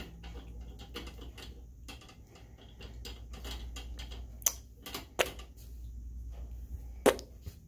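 Kitten chewing on the metal wire door of a plastic cat carrier: irregular clicks and rattles of teeth on the wire. Sharper clinks come about four and a half, five and seven seconds in. The owners take the chewing for teething.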